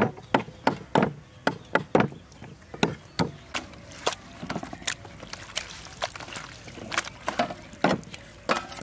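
Cleavers chopping raw beef intestine on wooden chopping blocks: a run of sharp chops about two or three a second, which grow quieter and sparser in the second half.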